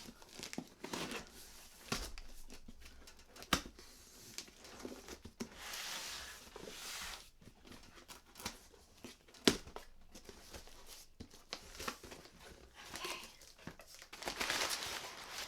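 Packaging of a mailed book box being torn open and handled: irregular rustling, crinkling and tearing of paper wrapping, with a couple of sharp clicks.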